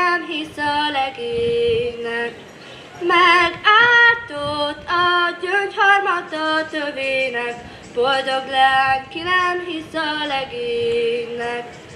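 Children's voices singing a song together in unison, in held melodic phrases, with no instruments.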